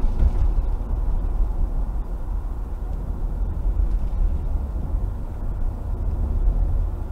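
A car driving on a wet road, heard from inside the cabin: a steady low rumble of engine and tyres with a faint hiss above it.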